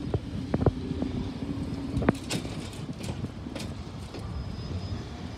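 Street sounds at a level crossing as it reopens: sharp knocks and footsteps, a steady hum that stops about two seconds in, and road traffic.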